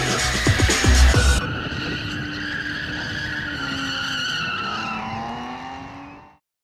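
Background music with a beat, cut off about a second and a half in, then a BMW drifting: tyres squealing under a hard-running engine, fading out near the end.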